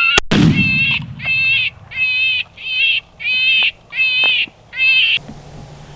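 A single 12-gauge shotgun blast just after the start, followed by an electronic predator call looping a high, wavering distress cry, seven identical cries at an even pace, which cuts off abruptly near the end.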